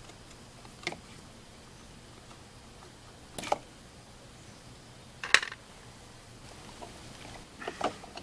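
A few separate sharp clicks and clinks of small metal parts and hand tools being handled while a chainsaw's choke lever is taken off. There are four, the loudest a little past halfway.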